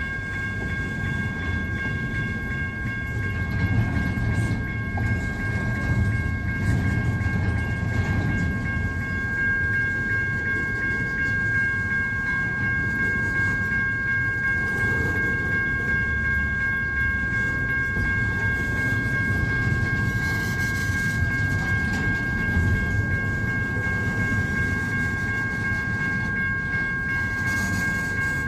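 Freight train cars rolling past with a steady low rumble, and a constant high-pitched ringing tone held over it throughout.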